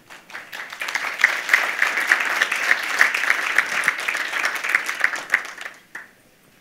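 Audience applauding: the clapping builds over the first second, holds steady, and dies away about six seconds in, with one person's claps standing out at about four a second.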